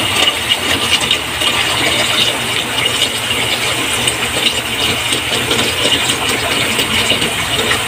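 Tap water running steadily into an aluminium pot of water in a sink, with a hand swishing and rubbing raw meat in the water as it is rinsed.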